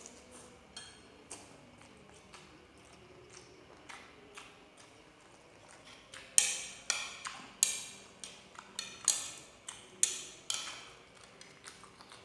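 Close-up eating sounds: a run of sharp clicks and taps, sparse and faint at first, coming thicker and louder from about halfway through.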